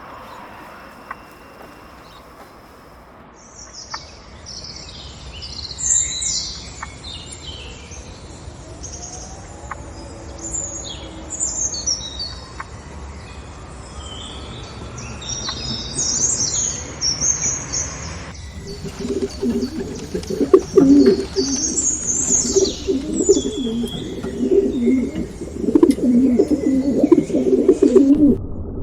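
Small birds chirping and tweeting in many quick, high calls, joined about two-thirds of the way through by pigeons cooing in low, pulsing calls that become the loudest sound.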